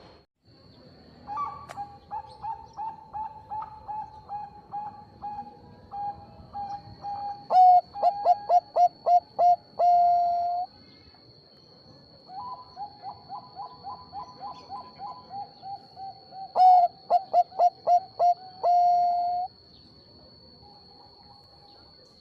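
Zebra dove (perkutut Bangkok) singing two song phrases, each a quick run of short coos that ends in a few louder notes and one longer held coo. A faint steady high whine runs underneath.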